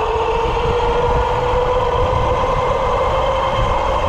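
Mountain bike riding on asphalt: a steady whine that rises slowly in pitch as it gathers speed, over low wind rumble on the microphone.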